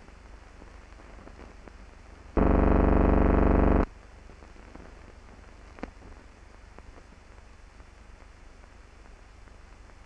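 Low, even hiss, broken about two and a half seconds in by a loud, steady buzzing hum that starts and stops abruptly and lasts about a second and a half. A single click comes near the six-second mark.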